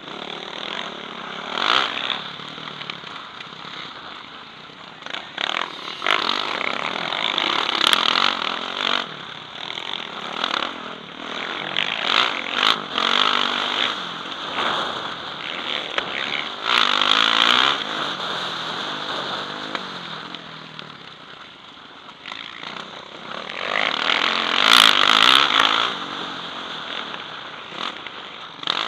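Motocross bike engine revving hard and easing off over and over as it races round a dirt track, heard from the rider's helmet, with the loudest surges of throttle several times along the way.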